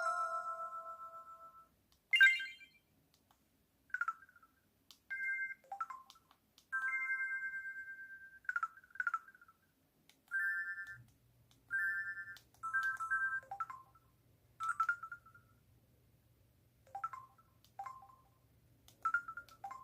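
Samsung Anycall SPH-C2205 slide phone's speaker playing a run of short electronic alert tones and chimes one after another, each a second or less with brief pauses between. A longer tone fades out in the first two seconds.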